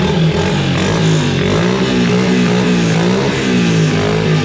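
A vehicle engine running and being revved, its pitch rising and falling about once a second.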